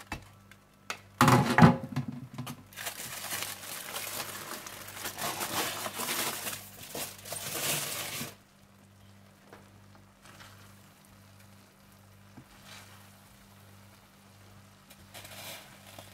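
A paella pan being uncovered after resting on low heat: a clatter about a second in, then about five seconds of crackling, rustling noise that stops abruptly, leaving a faint steady hum.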